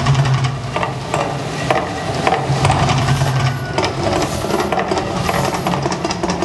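Gas flame effects of the Mirage volcano show burning in bursts from the volcano top and the fire jets on the water: a loud, crackling hiss over a low rumble.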